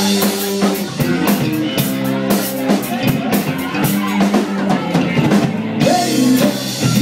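Live rock band playing: a drum kit keeps a steady beat over electric bass and guitar.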